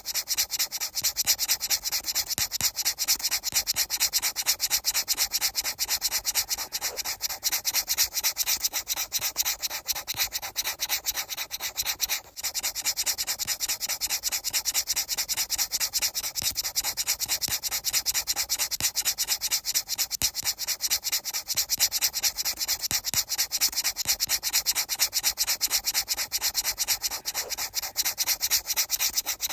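Fast, steady, rhythmic rubbing strokes like sanding, with one brief break about twelve seconds in.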